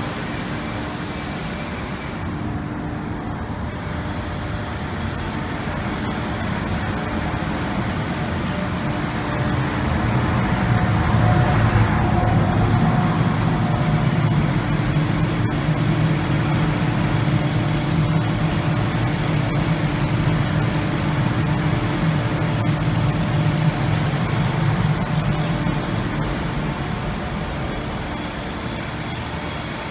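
Street traffic noise with a heavy engine's low, steady drone that builds about ten seconds in, holds for a long stretch and eases off near the end.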